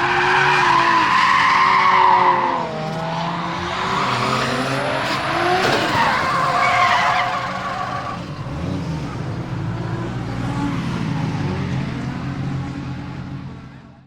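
Nissan 200SX S14's turbocharged RB25DET straight-six revving up and down hard while its tyres squeal in a drift, heard from inside the car. The sound fades out at the end.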